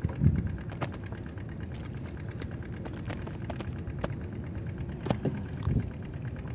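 Scattered clicks and knocks of fishing tackle being handled on a wooden boat's planks, over a steady low hum of a small engine running.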